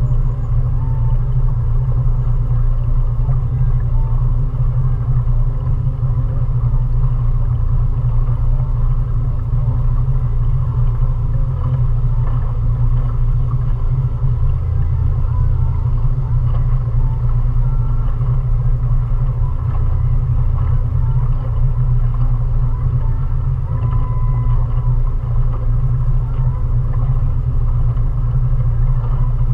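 A 20 hp outboard motor on a small Dawncraft Dandy cruiser running steadily under way: a constant low rumble that does not change in pitch or level.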